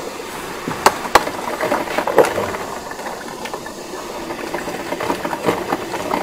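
Krups 985 combination espresso and coffee maker heating its water, a steady hissing and crackling, with two sharp clicks about a second in.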